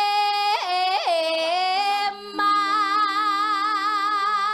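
A woman singing a solo Javanese bawa, the free-time vocal introduction to a gamelan piece, into a handheld microphone. Quick ornamental turns come in the first couple of seconds, then a short break and one long held note with a wide vibrato.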